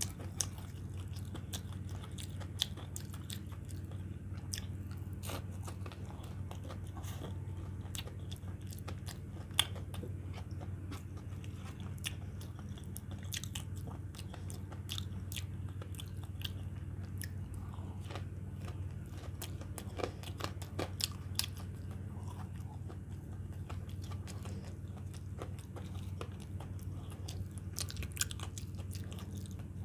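Close-up chewing and biting of fried breaded chicken nuggets with cheese sauce: crunches and wet mouth clicks at irregular moments, over a steady low hum.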